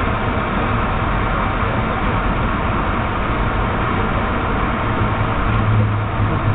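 Steady cabin noise of a Boeing 757-200 taxiing just after landing: its jet engines running at low power along with rolling noise, heard from inside the cabin, with a steady low hum.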